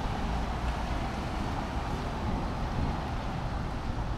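Wind buffeting the microphone over a steady low rumble and hiss of street noise on a rainy day.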